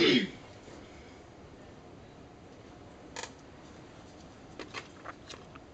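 Handling noises from dissecting a preserved cat: a brief, loud rustle-like sound with a falling pitch right at the start, then a handful of short clicks and taps, one about three seconds in and a quick cluster near the end, as gloved hands work the tissue with dissecting tools.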